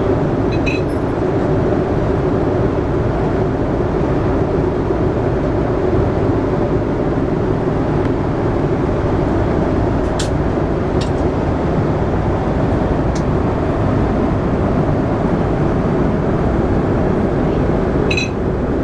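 Steady cabin noise of a Boeing 747-400 airliner in flight: a constant rush of airflow and engine drone, with a few faint clicks.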